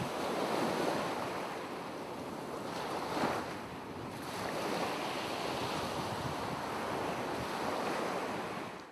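Ocean surf sound effect: a steady wash of waves that swells slightly about three seconds in and dies away at the end.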